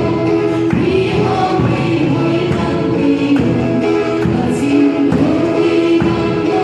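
Women's voices singing a gospel song together through microphones, accompanied by a strummed acoustic guitar.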